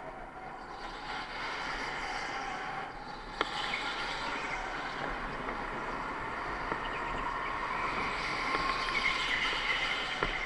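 Electric go-kart motor whining under way with tyre noise, the whine rising and falling in pitch with speed through the corners. One sharp click about a third of the way through.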